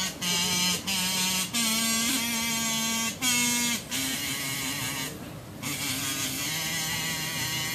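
A pitched instrument plays a slow tune of held notes, each lasting about half a second to a second and a half, stepping a little up and down in pitch with short breaks between notes.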